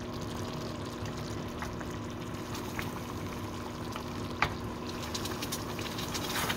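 Chicken legs sizzling and bubbling in a thick ketchup sauce in a nonstick pan, with a few sharp knocks of a wooden spatula against the pan as a leg is turned, the clearest about four and a half seconds in. The sauce has cooked down far enough that the skin is starting to burn.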